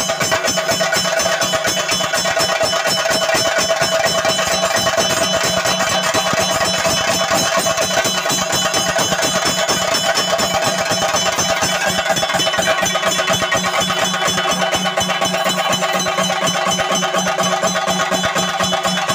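Chenda drums beaten in a fast, continuous rhythm with ringing ilathalam cymbals: the percussion that drives a Theyyam dance.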